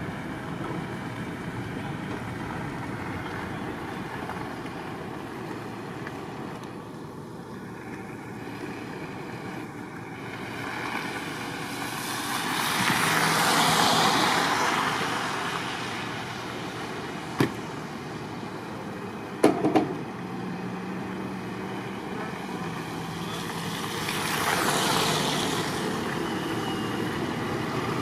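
Road traffic in a snowstorm: a steady hiss of background noise that swells and fades twice as vehicles pass, with a few sharp knocks around the middle.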